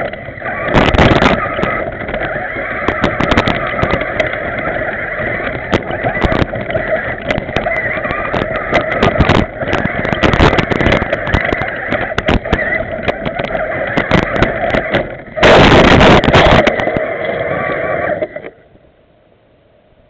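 Remote control 4x4 truck's motor and drivetrain running steadily, heard through a camera mounted on the truck, with many clicks and knocks as it drives over rough dirt and grass. Near the end comes a louder rough burst of noise lasting about a second and a half, then the running sound cuts off suddenly.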